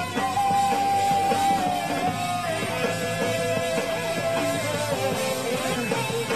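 Live rock band playing, with electric guitar to the fore and long held notes that step down in pitch.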